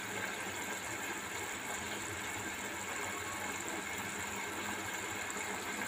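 Steady, even kitchen hum with a hiss over it, machine-like and unchanging, as beef cooks in spiced oil in a pan on a medium flame.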